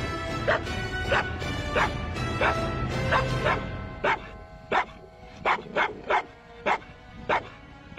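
A dog barking repeatedly in short, sharp barks, about a dozen in all, one to two a second, over background music that fades away about halfway through.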